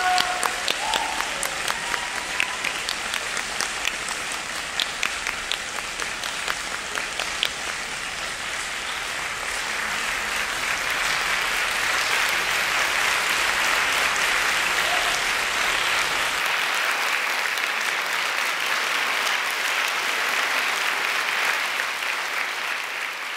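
Audience applauding after a wind-band piece. Individual claps stand out at first, then merge into denser, steady applause that starts to fade near the end.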